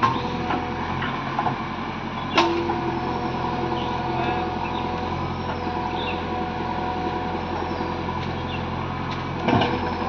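JCB 3DX backhoe loader's diesel engine running steadily with a constant whine over it. There is a sharp metallic clank about two and a half seconds in and another knock near the end.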